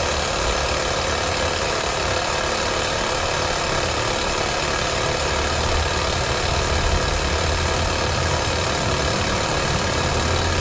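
A steady, unbroken engine drone, strongest at the low end.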